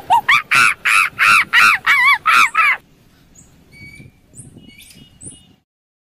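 Monkey calling: a fast run of hoots that climb in pitch into loud screams, about four a second, breaking off about three seconds in. Faint high chirps follow, then a moment of silence near the end.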